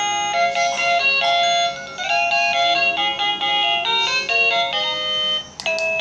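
ZEHN ZN-903Y wireless doorbell receiver playing an electronic chime melody through its small speaker, with several notes at a time. Near the end the tune breaks off with a click and a different tune begins, as the tunes are cycled.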